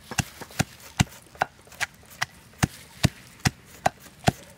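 Stone pestle pounding garlic cloves and chopped green herbs in a stone mortar, a steady knock about two and a half times a second.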